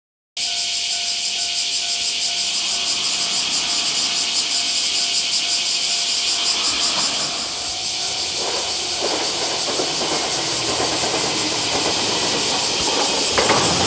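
Railway level-crossing alarm ringing in a steady, rapid rhythm. From about eight seconds in, the rumble of an approaching three-car diesel limited express train rises under it, and it grows louder near the end as the train reaches the crossing.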